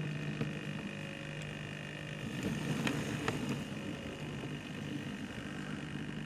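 Small electric motor of an OO-gauge model steam locomotive running steadily with a low hum, with a few faint clicks as it rolls over newly relaid approach track to the turntable.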